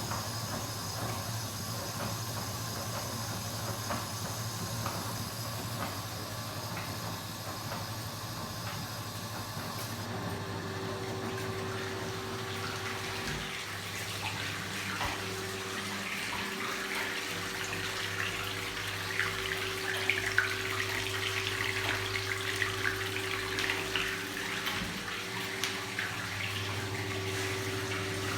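Kenwood washing machine running with a steady hum; about ten seconds in it changes to water rushing and splashing into the drum, growing louder as it fills.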